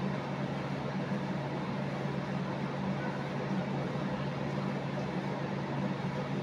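Steady low mechanical hum over an even hiss, without change.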